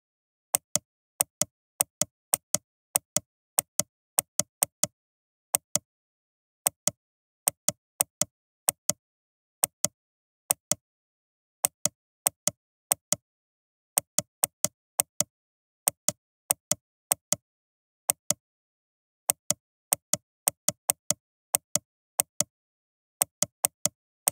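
Computer mouse clicking: sharp single and double clicks at an irregular pace, roughly one or two a second, with dead silence between.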